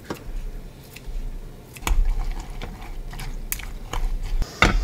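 Kitchen scissors snipping turkey bacon into a glass measuring cup, then chopsticks stirring and clicking against the glass, in a run of sharp clicks and taps.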